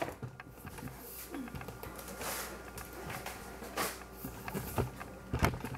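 Faint handling sounds: a few scattered light knocks and rustles as a foil-lined glass baking dish is moved on a stovetop, with low room noise between them.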